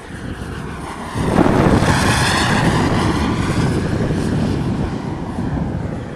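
Radio-controlled Jet Provost T5 model jet flying past: its jet noise rises sharply about a second in, peaks, then slowly fades as it climbs away.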